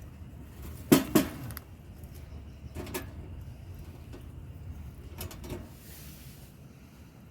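A sharp double knock about a second in, then softer single knocks near three and five seconds, over a steady low background hum.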